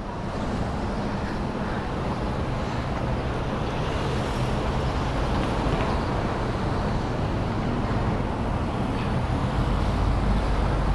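City street traffic noise, with a motor vehicle running close by; the low end of the sound grows stronger near the end.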